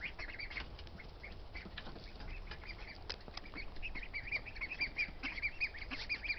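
Young Pekin and Welsh Harlequin ducklings peeping: many short, high peeps that come thicker in the second half.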